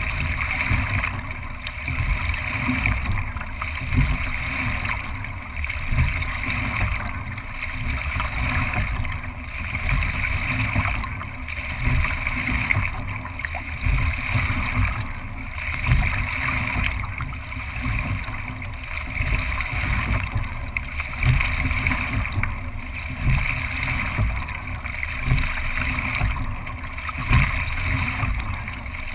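Water rushing along the hull of a racing single scull, with wind rumbling on the microphone. The rush swells and eases about once every two seconds, in time with the rowing strokes.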